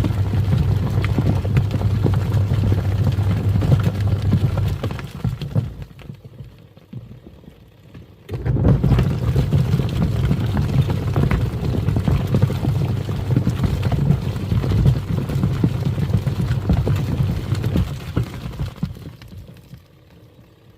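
Twin-tub washing machine's wash tub running, its motor humming as the pulsator churns foamy water. The motor winds down about five seconds in, stops for about three seconds, starts again, and winds down once more near the end, the stop-start of the wash cycle.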